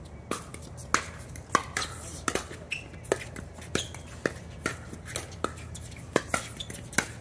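Pickleball rally: sharp pops of paddles striking the hollow plastic ball, about two a second, some louder than others, over a low steady hum.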